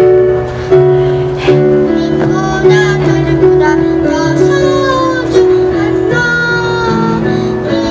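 A young girl singing solo into a microphone over an instrumental accompaniment, holding long notes that glide between pitches.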